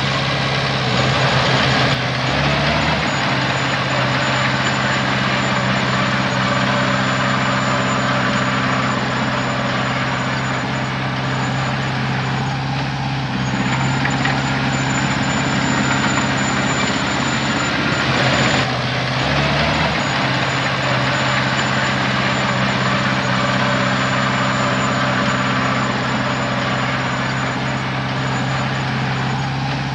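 Heavy diesel engine of earthmoving machinery running steadily under load, its note shifting briefly about two seconds in and again a little past halfway, with a faint high whine over it.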